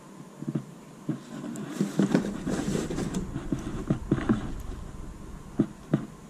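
Baseball caps and a cardboard box being handled: cardboard flaps and caps rustling and rubbing, loudest about two to three seconds in, with a string of sharp taps and knocks throughout.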